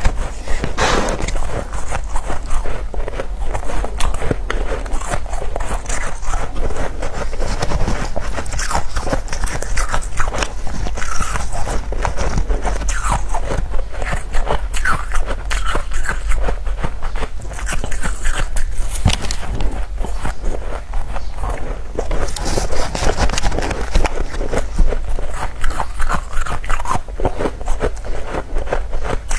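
Close-miked crunching of powdery freezer frost being bitten and chewed, a dense run of quick crackles and crunches that goes on throughout.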